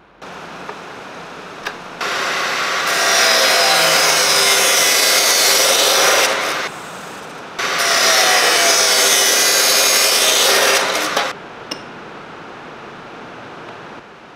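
Abrasive cut-off saw grinding through a steel tube in two loud stretches of about three seconds each, with a short break between, over a quieter steady noise before and after.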